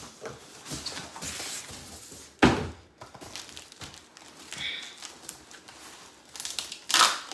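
A large cardboard box being handled and pulled open, with scraping and rustling, a heavy thump about two and a half seconds in and another thump near the end.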